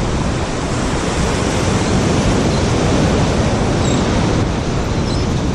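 Steady wind noise buffeting the microphone, mixed with the wash of surf.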